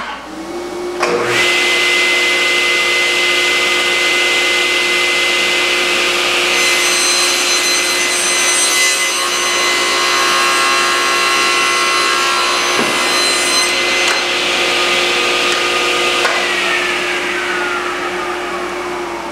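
SawStop table saw switched on and spinning up to a steady whine. From about six to fourteen seconds in the blade cuts through a long board and the sound gets higher and harsher. Then the saw is switched off and winds down with a falling pitch near the end.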